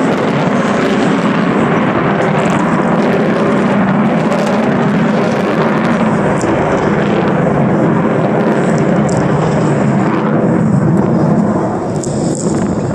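Avro Vulcan bomber's four Rolls-Royce Olympus turbojets in a flypast: loud, steady jet noise that eases slightly near the end as the aircraft draws away.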